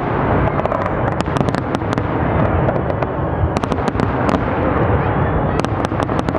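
Fireworks display: a continuous low rumble of bursts with repeated clusters of sharp crackling pops.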